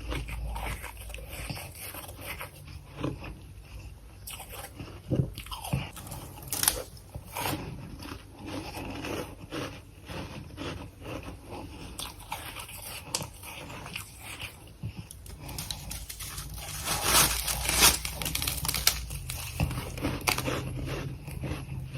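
Close-up biting and chewing of powdery freezer frost, a run of irregular crisp crunches that grows denser and louder about two-thirds of the way through.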